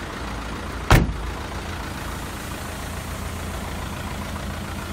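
Hyundai County minibus engine idling steadily, heard from inside the cab. A single sharp thump about a second in.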